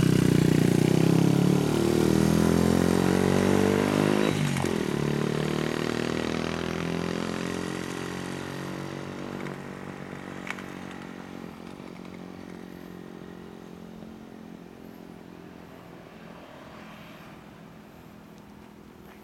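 Honda Monkey Z50J minibike with a 106cc Takegawa bore-up engine and DOHC head, running through a Takegawa basic muffler, pulling away and accelerating through the gears: its pitch climbs, drops at upshifts about one and a half and four seconds in, and climbs again. The engine fades steadily as the bike rides off.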